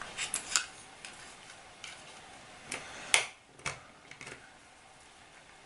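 Small sharp plastic clicks and taps, irregularly spaced, as a screwdriver pries at the clips of a quartz clock movement's black plastic case; the loudest click comes about three seconds in.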